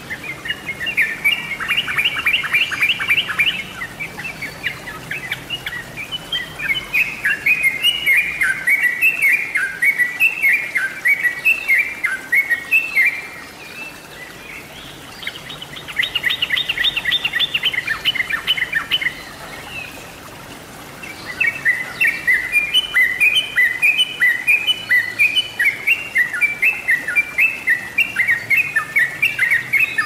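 Yellow-vented bulbul (trucuk) singing: short, quick phrases of chuckling notes repeated over and over. Fast chattering runs come about two seconds in and again around sixteen seconds, with brief pauses in between.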